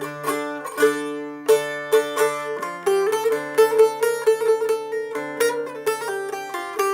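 Instrumental break of a Turkish folk song: a plucked string instrument plays a quick melody over held lower notes, with no singing.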